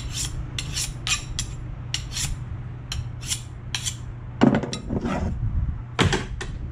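Fillet knife being sharpened on a chef's sharpening steel: quick, bright scraping strokes of steel on steel, about three a second. These give way to a few slower, heavier strokes in the last couple of seconds.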